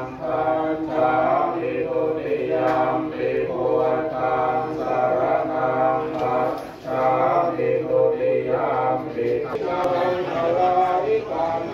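Buddhist monks chanting Pali verses together: several male voices in a steady, sustained chant, with one brief pause for breath partway through.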